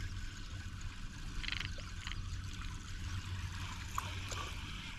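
Zman Hellraizer topwater prop bait being reeled across the surface, its spinning tail gurgling and splashing the water in short spurts.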